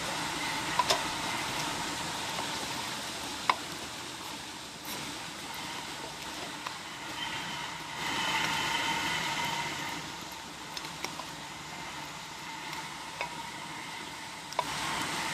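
Fire hissing steadily with occasional sharp crackles and pops, louder for a couple of seconds near the middle.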